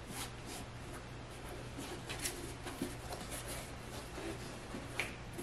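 Faint scattered rustles and light scratches of hands pressing a clear plastic sole-protector film down onto a sneaker's sole, over a low steady hum.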